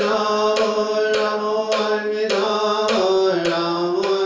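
Buddhist-style chant: a long held low voice-like tone over a steady struck beat about twice a second, the pitch dipping slightly about three seconds in.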